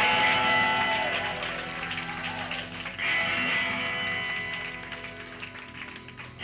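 Live band guitars ringing out: a chord sounds at the start and dies away, then a new chord is struck about three seconds in and fades in turn.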